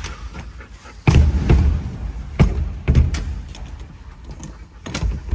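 A locked door being forced: the knob rattling and the door thumping against its frame, with a sudden heavy thump about a second in, then repeated knocks and rattles.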